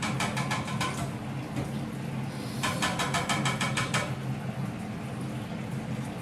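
Two runs of rapid, even clicking, about ten clicks a second and each about a second long, the second starting about two and a half seconds in, over a steady low hum.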